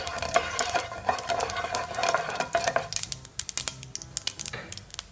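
A wooden spatula scrapes and stirs mustard seeds through hot coconut oil in a nonstick frying pan for about three seconds. Then the seeds crackle and pop in the oil with irregular sharp clicks: the oil is hot enough to temper them.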